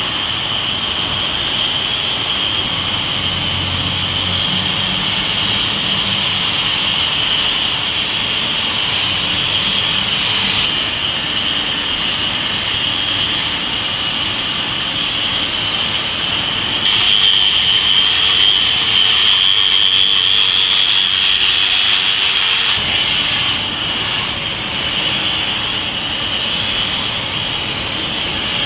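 Handheld angle grinder working a steel lighting pole: a steady high whine over grinding noise, running without a break and getting a little louder for several seconds past the middle.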